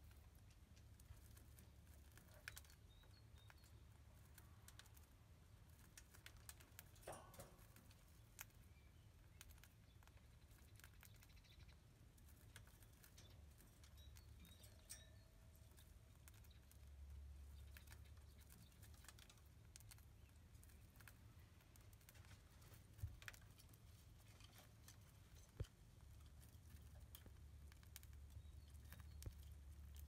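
Near silence: a low hum with soft scattered clicks and taps from a lineolated parakeet moving on a wire cage top, with a few sharper ticks in the second half.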